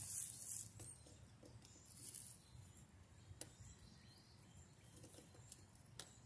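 Very quiet, faint scratchy rustling at the start and again about two seconds in, then a couple of small clicks, as screws are worked out of a plastic box fan's housing with a hand screwdriver.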